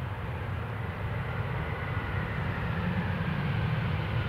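Jet airliner on approach to land: a low engine rumble with a faint whine, growing steadily louder as it nears.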